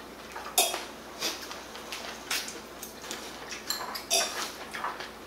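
Metal chopsticks clinking against a bowl and dishes while eating, about half a dozen short, sharp clinks, the loudest just over half a second in.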